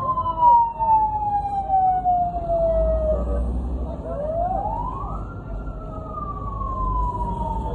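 Fire truck siren wailing: a long, slow fall in pitch, a quick rise about four seconds in, then another slow fall. A low engine rumble runs beneath it.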